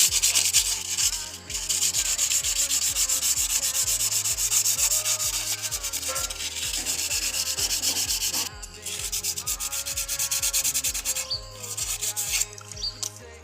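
A mountain bike's disc brake rotor rubbed by hand in quick back-and-forth scraping strokes, to clean off fork oil that had contaminated the brake and made it noisy. The strokes pause briefly past the middle and thin out near the end.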